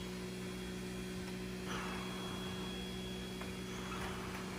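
Steady electrical hum with a thin high whine above it, with faint rustling of a towel rubbing a puppy's fur.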